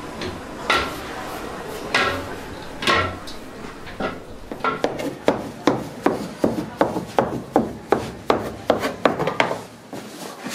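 A metal bench scraper chopping through a slab of risen dough and knocking on the floured work table. A few scattered knocks come first, then a quick even run of sharp knocks at about three a second, which stops shortly before the end.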